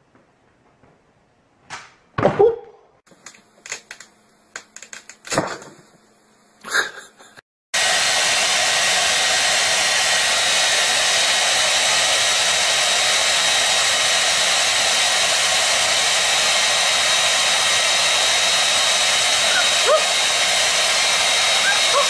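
Handheld hair dryer blowing steadily, starting abruptly about eight seconds in. Before it come a few scattered short knocks and thumps.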